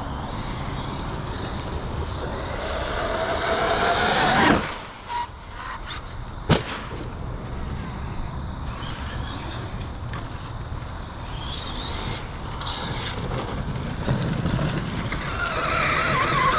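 Arrma Outcast 8S RC truck's 1100KV brushless motor and Hobbywing Max 5 G2 ESC whining higher as it speeds up, cutting off suddenly about four and a half seconds in. A sharp knock follows about two seconds later, then the truck runs on and its whine rises again near the end.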